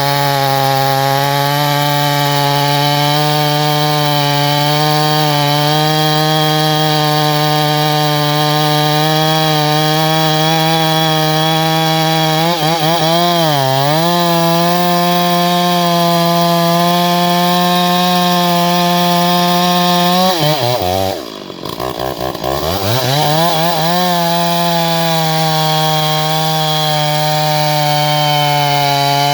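Large two-stroke chainsaw, a 650-size saw, running at high revs under load while cutting timber. Its engine note sags briefly about halfway through, then drops sharply toward idle about two-thirds of the way in and revs back up.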